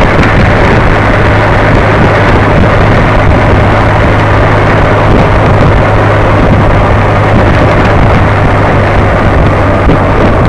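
Steady low engine hum from a vehicle cruising at a constant speed, mixed with heavy wind rush on the microphone.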